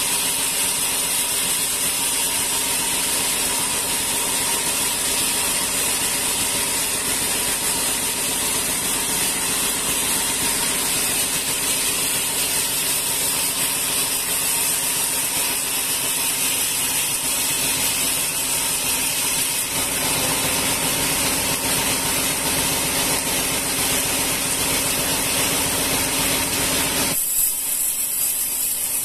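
Band sawmill running steadily: a loud, even mechanical hiss with a steady hum under it. Near the end the deeper hum drops away and the high hiss carries on.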